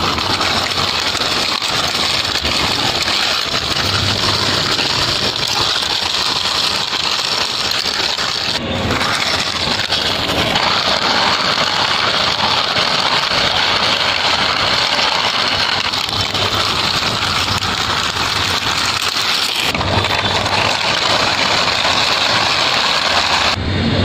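Plastic toy auto rickshaw pushed by hand along a rough concrete wall, its wheels rolling with a steady grinding noise that breaks off briefly twice.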